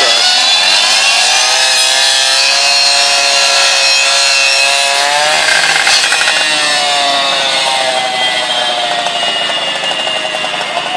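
Rescue extraction saw cutting, its motor whine dropping in pitch under load and climbing back several times.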